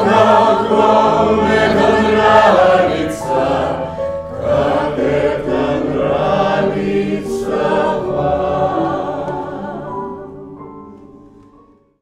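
A chorus of voices singing the last sustained phrases of a stage-musical song, fading out over the final two seconds.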